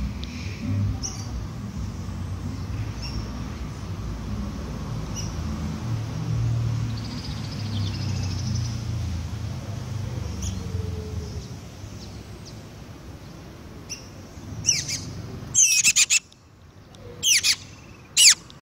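Male shiny cowbird singing: faint, short high chirps at first, then near the end a few loud, brief, high sweeping whistled notes. A low rumble runs underneath until the loud notes begin.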